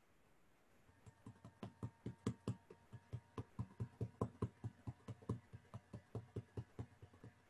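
Typing on a computer keyboard: a run of light key clicks at about five a second, starting about a second in and stopping near the end.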